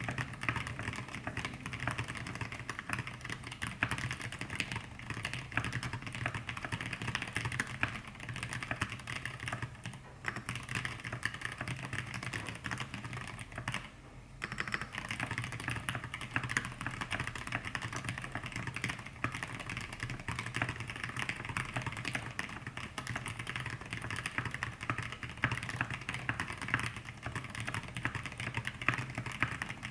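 Fast, continuous typing on an E6-V2 mechanical keyboard with lubed Zealios 65g v2 tactile switches in an aluminium plate and thick KAT Alpha PBT keycaps: a dense stream of keystrokes with short pauses about ten and fourteen seconds in, over a steady low hum.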